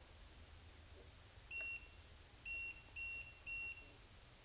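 BSIDE X1 non-contact voltage detector pen beeping in short, high-pitched pulses: four beeps, starting about a second and a half in and coming faster. The beeping is its alert that it senses live mains voltage in the outlet without touching it.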